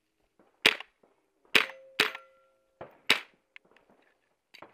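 AR-style rifle fired four times: one shot, then two in quick succession about half a second apart, then one more. A hit steel target rings with a clear tone for about half a second after the second shot.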